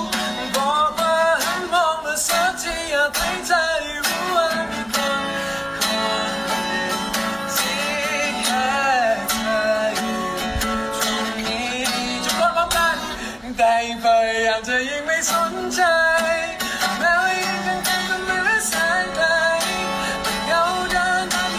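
A man singing a slow song to his own acoustic guitar, strumming chords under the voice in a solo acoustic performance.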